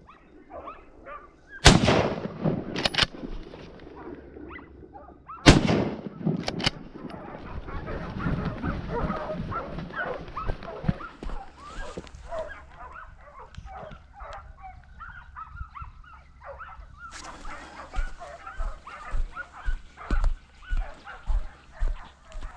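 Two shots from a scoped hunting gun, about two seconds in and again about four seconds later, each followed by quick mechanical clicks. After the shots comes a long stretch of choppy animal calls, typical of hunting hounds baying, and near the end regular heavy footfalls on grass about twice a second.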